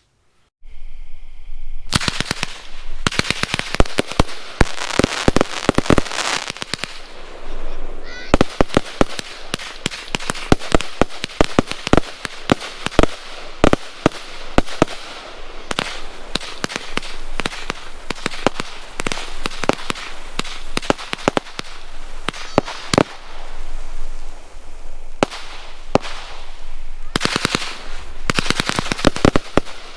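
A 138-shot PyroMax compound firework cake firing, starting about two seconds in: a fast, continuous run of launch thumps and aerial bursts.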